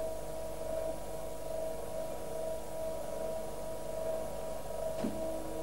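Machinery running with a steady hum of several even tones. About five seconds in there is a short click, and a lower tone then joins the hum.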